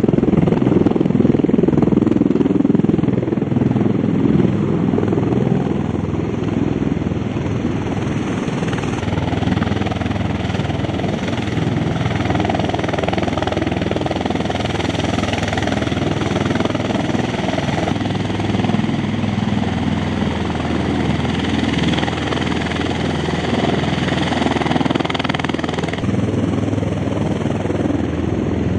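Military aircraft engines and propellers running on the ground as one loud, steady drone. These are a Marine C-130 Hercules's four turboprops and, through the middle stretch, an MV-22 Osprey's engines and rotors. The sound shifts abruptly about 9, 18 and 26 seconds in.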